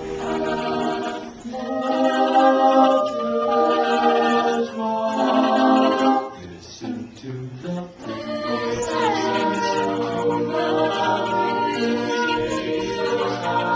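An a cappella group singing in harmony, voices only with no instruments; the sound thins and drops quieter for a moment around the middle, then the full group comes back in.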